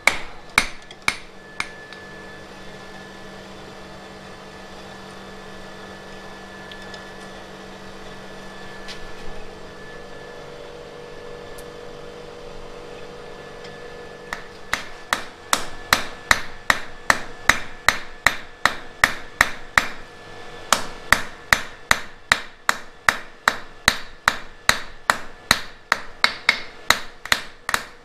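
Hand hammer striking red-hot flat iron on an anvil while forging a toasting fork. A few blows come at the start, then a long pause, then from about halfway a fast, even run of blows, about two or three a second, broken once by a short pause.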